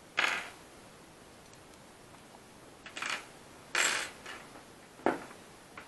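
Small metal rotary-tool parts clinking down onto a tabletop: four short clicks, the first about a quarter second in and the others about three, four and five seconds in. The one near four seconds has a slight metallic ring.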